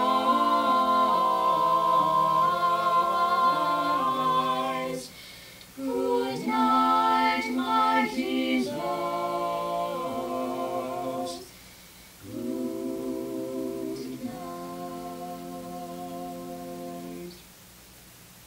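Four-part mixed a cappella vocal group (soprano, alto, tenor, bass) singing the closing phrases of a slow, lullaby-like hymn in three sung stretches with short breaths between. It ends on a long held final chord that cuts off about a second before the end.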